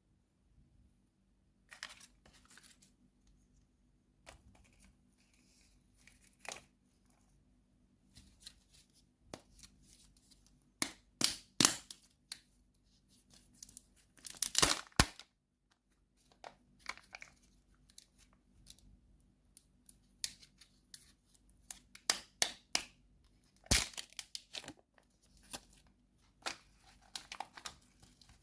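Candy wrapper being torn open and crinkled by hand: irregular crackling with a few sharper, louder rips.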